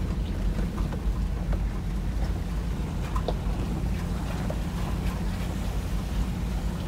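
Steady low rumble of a Toyota Land Cruiser 100's V8 and tyres driving slowly over a rough dirt forest track, heard from inside the cab, with a few small ticks and knocks scattered through it.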